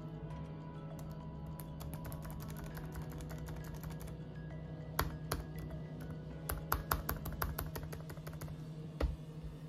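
Laptop keyboard keys pressed a few times: a sharp click about halfway through, a quick run of clicks a little later and one more near the end, over steady background music.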